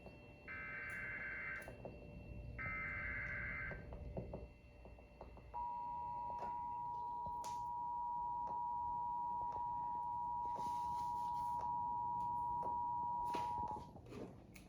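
Emergency Alert System (EAS) SAME header: the last two of its three bursts of warbling digital data tones, each about a second long, then after a pause of about two seconds the two-tone EAS attention signal (853 and 960 Hz together) held steady for about eight seconds, cutting off near the end.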